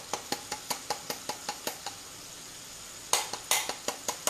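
A spoon stirring thick pistachio pesto in a blender beaker, clicking against its sides about five times a second, with two louder scraping strokes about three seconds in.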